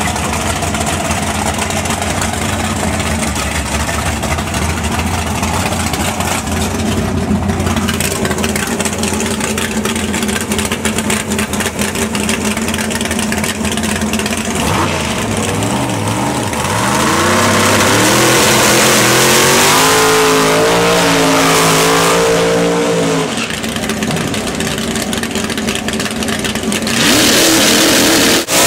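A/FX drag-race cars' engines idling with a steady rumble, then revved up and down for several seconds about halfway through. Near the end comes the loudest part, a full-throttle launch off the line.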